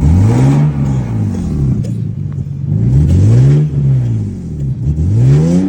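Lexus GS300 engine revved three times, each rev rising and falling, after new timing was set; the owner says it still has a one-cylinder misfire.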